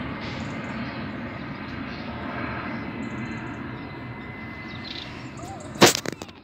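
Airbus A320 jet engines running as the airliner climbs away after takeoff, a steady rumble that slowly fades. Near the end, a loud sharp knock and brief clatter.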